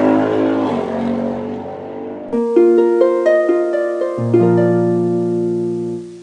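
Intro music: a tail of another sound fades out over the first two seconds, then a short run of plucked, harp-like notes starts about two seconds in and cuts off suddenly at the end.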